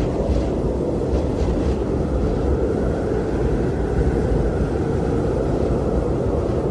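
Blizzard wind blowing steadily, a low rumbling rush of noise, with a few faint brief hissing gusts in the first two seconds.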